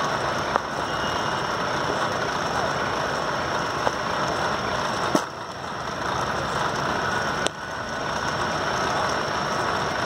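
Sharp knocks of a cricket bat striking the ball during net practice, the two clearest about five and seven and a half seconds in, with fainter ones earlier, over steady outdoor background noise.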